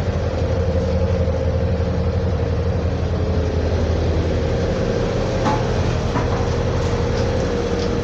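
Diesel engine of a 2004 Blue Bird All American bus idling steadily while driving the air-conditioning compressor, heard from inside the bus cabin as a steady low drone with a steady higher hum over it.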